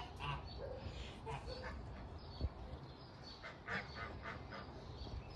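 Domestic waterfowl calling in short honks, scattered through, with a quick run of calls about three and a half seconds in. A single soft knock a little before.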